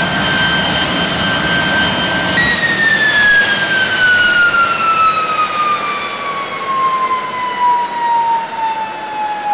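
Rolls-Royce Derwent jet engine running at idle, a steady high whine over a rumble. About two seconds in, the rumble stops and the whine falls slowly and steadily in pitch as the engine winds down after shutdown.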